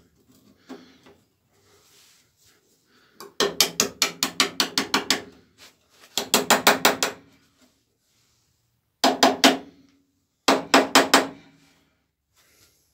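Thin steel patch panel being tapped into the lower edge of a car door. Four quick runs of light metal-on-metal taps, several a second, each tap with a short ring.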